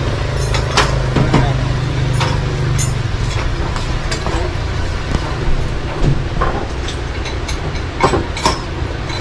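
Busy café ambience: a steady low hum with scattered clinks of dishes and cutlery and faint voices.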